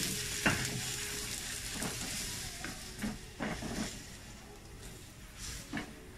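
Chopped onions sizzling as they sauté in a stainless steel wok, with a spatula scraping and knocking against the pan several times as they are stirred. The sizzle gradually fades.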